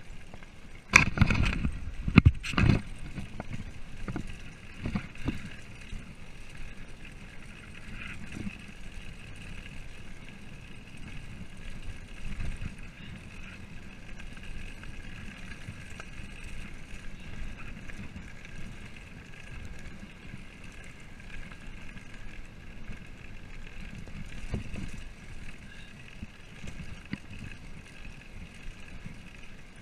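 Mountain bike rolling down a rough gravel road: a cluster of loud jolts and rattles in the first few seconds, then steady rolling noise with occasional smaller bumps.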